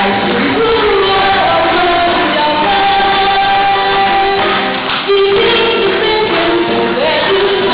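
A woman singing a Portuguese popular song into a handheld microphone, with musical accompaniment.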